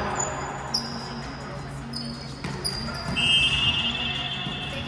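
Sneakers squeaking on a hardwood gym floor in short high chirps during a volleyball rally, with a couple of sharp ball hits, one about a second in and another near two and a half seconds. A longer, steady high tone runs from about three seconds in.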